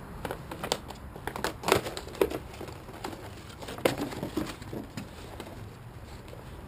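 Rustling and crinkling of plastic packaging and a canvas messenger bag being handled, with scattered light clicks and knocks that thin out after about five seconds.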